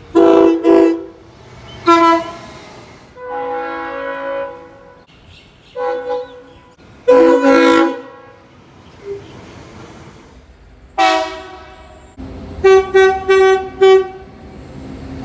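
Train horns sounding a series of chord blasts, some long and some short, a few louder than others. Near the end comes a run of quick short toots over a steady low rumble.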